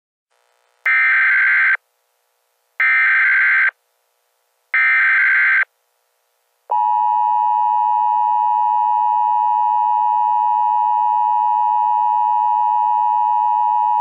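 Emergency Alert System header: three short bursts of SAME digital data tones, each under a second, then the steady two-tone EAS attention signal starting about seven seconds in.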